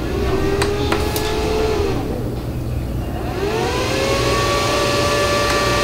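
AllPowers R600 portable power station running under the load of a drip coffee maker drawing about 560 watts, with a steady hum and a whine that rises about two and a half seconds in and then holds steady. A couple of clicks come in the first second.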